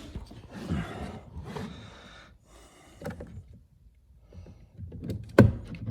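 Plastic car door trim being pried and handled, with scraping and rustling, then a sharp plastic click near the end.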